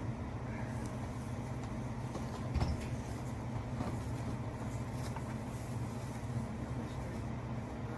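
A motor vehicle's engine running steadily, a low even hum, with a brief thump about two and a half seconds in.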